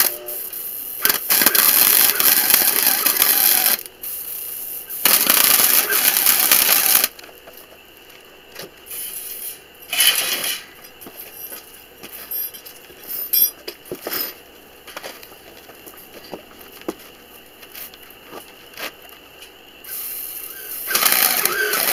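Wire-feed welder arc crackling and sizzling in bursts of a few seconds as it tack welds steel horse panel wire to the cage gate. Two long bursts come in the first seven seconds, a short one about ten seconds in, and another starts near the end, with light clicks and taps between.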